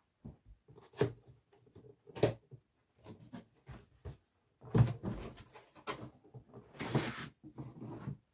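Cardboard box being opened and unpacked by hand: scattered scraping and rustling of the flaps, with four sharp knocks spread through. Near the end a longer, louder rubbing of cardboard and foam packing comes as the amp combo is drawn up out of the box.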